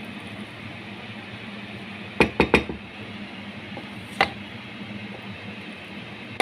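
Wooden spatula knocking against a metal cooking pot while stirring rice pulao: three quick knocks about two seconds in, another about two seconds later and one more at the end, over a steady background hum.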